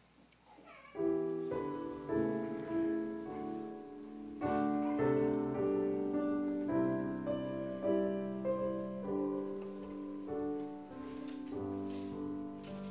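Instrumental piano music begins about a second in, playing slow, sustained chords.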